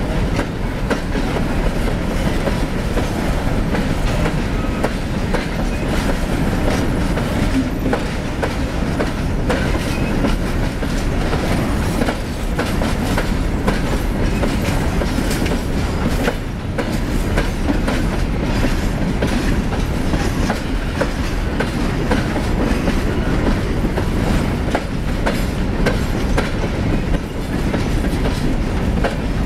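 Freight train of steel open-top hopper cars rolling steadily past: a continuous rumble of steel wheels on rail with a running clatter of clicks and clacks as the wheels pass over the track.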